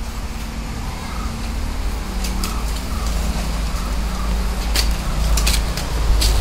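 Long-handled cobweb broom brushing against a house wall and eave, giving a few short scrapes and taps over a steady low rumble.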